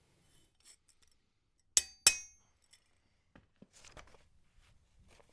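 Two sharp metal-on-metal strikes about a third of a second apart, the second ringing briefly, followed by faint clinks and rubbing of metal tools being handled.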